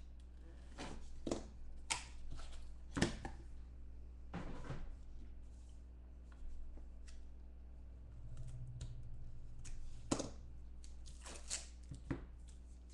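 Trading cards and their packaging being handled: scattered rustles, clicks and short sliding scrapes.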